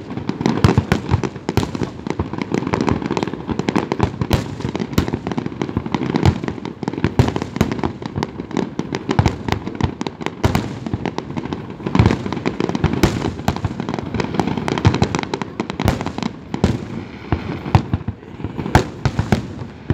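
Fireworks going off in quick succession: a dense string of sharp bangs and pops, several a second, over a continuous low rumble.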